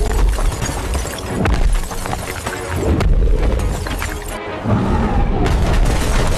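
Loud edited-in music track with a heavy bass and crashing noise over it. It cuts in suddenly and cuts off suddenly.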